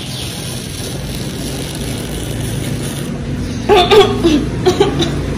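A short burst of laughter and vocal sounds near the end, over a steady low rumble.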